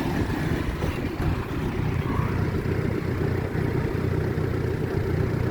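Bobcat E26 mini excavator's diesel engine running steadily.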